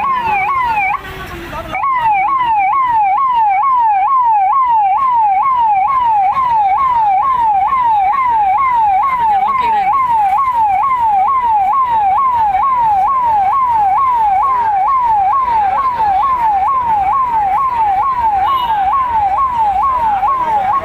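Police vehicle's electronic siren sounding a rapid yelp: about two falling pitch sweeps a second, repeated steadily and loudly. It cuts out briefly about a second in, then resumes.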